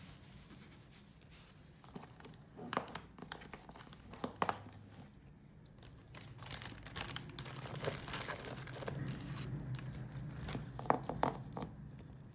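Packaging crinkling and rustling as it is handled during unpacking. It comes in irregular crackles a couple of seconds in and again through the second half, loudest near the end.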